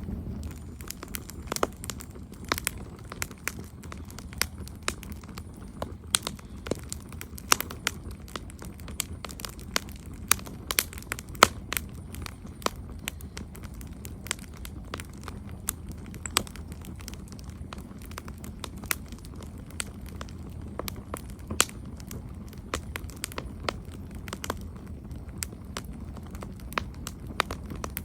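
Campfire crackling: irregular sharp pops and snaps of burning wood, several a second, over a steady low rumble of the flames.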